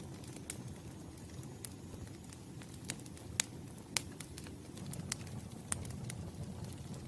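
Campfire burning, with irregular sharp crackles and pops over a steady low rumble of the flames. The two loudest pops come about three and a half and four seconds in.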